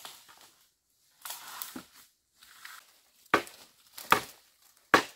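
Dry leaf litter and ferns crunching, then three sharp cracks of dry wood about a second apart as firewood sticks are gathered and broken.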